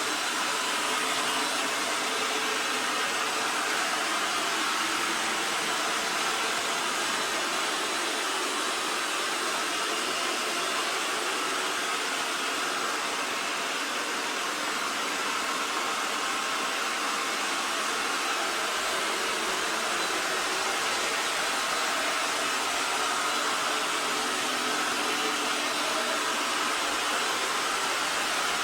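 EXTRAVIS V5 PRO robot vacuum running in sweep mode, a steady whir that holds an even level throughout.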